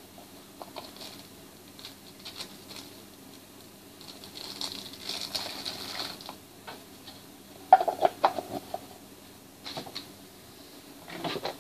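Small clear plastic box with padding being handled and pressed shut by hand: plastic crinkling about five seconds in, then a sharp run of plastic clicks and taps about eight seconds in, with a few more taps near the end. A faint steady hum lies underneath.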